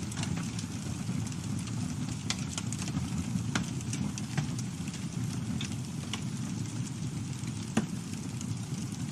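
Campfire burning: a steady low rumble of flames with scattered crackles and pops, one louder pop a little before the end.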